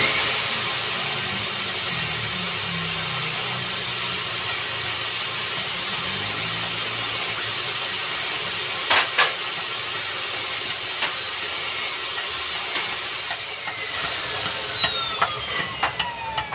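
Electric angle grinder spinning up to a high steady whine, with a grinding hiss that swells several times as it works. It is switched off about 13 seconds in and the whine slides down as the disc coasts to a stop.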